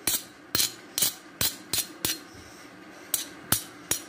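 Sharp metallic taps of a steel spoon knocking against a steel mortar and pestle to shake out crushed garlic and green chilli, about two a second. There is a pause of about a second in the middle, then three more taps near the end.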